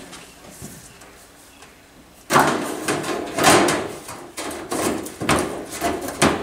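A hood scoop being set down on a car's cut-out hood and shifted into place. About two seconds in, a run of loud scrapes and knocks begins as it slides and bumps against the hood.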